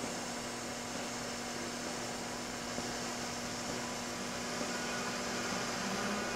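RMT S-FAB PDM 17-24 double miter bandsaw running, its blade cutting down through a workpiece as the bow feeds: a steady mechanical hum with a constant low tone.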